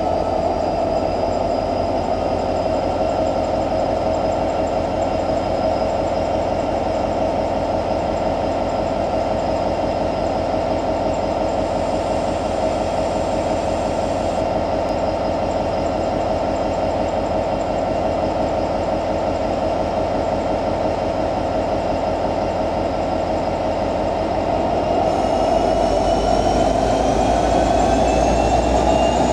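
EMD 16-710 G3C-U2 V16 two-stroke diesel engine of a Vossloh Euro 4000 locomotive running steadily at idle with a constant whine. About 25 seconds in it picks up: it grows louder and deeper, and a whine rises in pitch.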